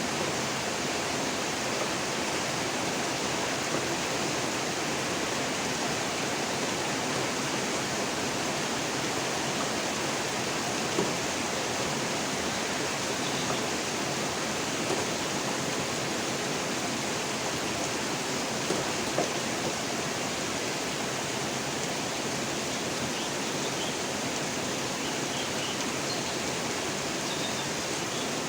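Steady rain falling, an even hiss with a few brief louder ticks of drops here and there.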